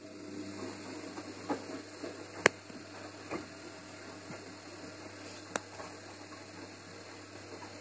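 Gorenje WA 50050 front-loading washing machine turning its drum of laundry during a 95° cotton wash, a steady low motor hum with the swish of tumbling laundry and a few sharp clicks, the loudest about two and a half seconds in.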